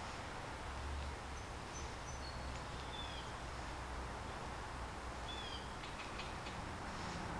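Outdoor ambience: a steady background hiss with a few short bird chirps, and a brief run of faint clicks near the end.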